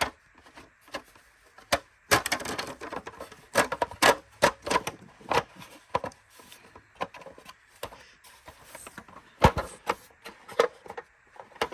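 Hard plastic vacuum parts knocking, clicking and clattering irregularly as they are handled and fitted together during reassembly, with one sharper knock about nine and a half seconds in.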